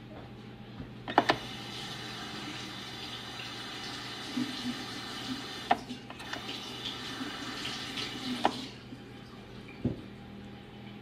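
Kitchen tap running water into a sink for about seven seconds, turned on about a second in and shut off near the end, with a few sharp clinks during it.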